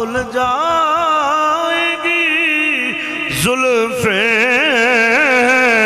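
A man's voice chanting a line of a devotional verse in long, drawn-out held notes with a wavering vibrato, the melody stepping up about three and a half seconds in.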